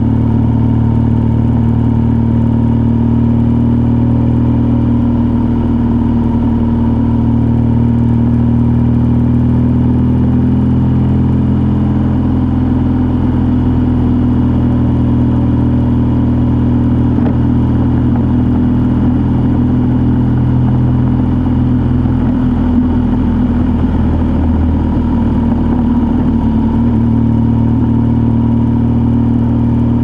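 A vehicle's engine running steadily while driving, a constant low drone with road hiss; the lowest part of the hum thins out for a few seconds past the middle, then returns.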